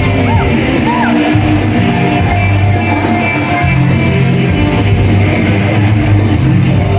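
A vocal group singing in multi-part harmony with guitar accompaniment, the voices holding long notes over a steady bass.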